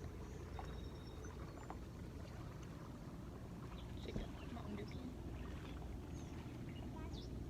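Water lapping and trickling around a kayak under a steady low rumble, with scattered small ticks and drips and one slightly louder knock about four seconds in.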